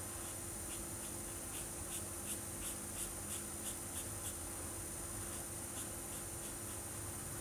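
Marker pen colouring on paper: short scratchy back-and-forth strokes, about three a second, in a run from about one and a half to four and a half seconds in, with a few fainter strokes near the end.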